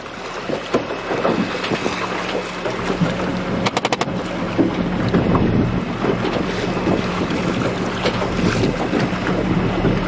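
A small boat's motor running steadily under way, with wind buffeting the microphone and water splashing against the hull. About four seconds in comes a quick run of about six clicks.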